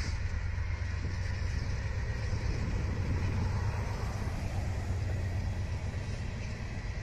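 Freight train passing at a distance with diesel locomotives working: a steady low rumble of engines and rolling cars.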